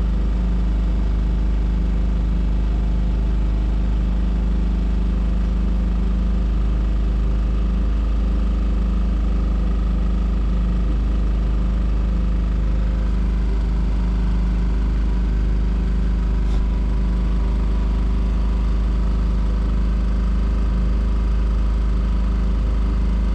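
A small sailboat's motor running steadily at an even speed as the boat motors along under power.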